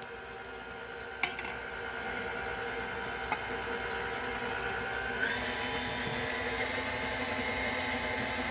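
KitchenAid Artisan stand mixer running steadily, beating pound cake batter as the last egg goes in. A light click about a second in, and about five seconds in the motor's whine steps up in pitch.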